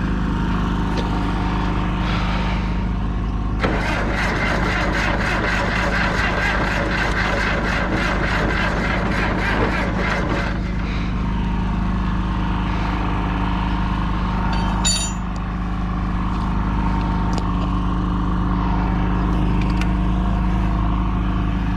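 Diesel engine of a John Deere 450C bulldozer running with a steady low drone, with a harsher rapid clatter of about four beats a second for roughly seven seconds from about four seconds in, as the engine is worked on after its fuel system was bled.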